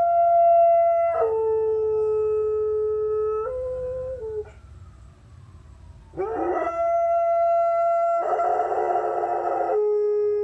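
Vizsla howling in long, held notes: a high note drops to a lower one about a second in, then after a short pause in the middle a new howl swoops up to the high note, roughens, and drops low again near the end. The howl is set off by passing emergency-vehicle sirens.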